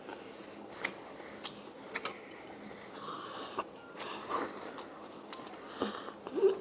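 A few scattered light clicks and soft rustles of people eating at a table, with utensils and food containers being handled.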